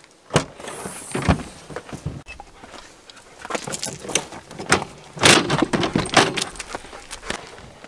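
Kia Sorento tailgate unlatched and swung open, then the metal wire door of a plastic dog crate unlatched and rattled open: a string of sharp clicks, clanks and rattles.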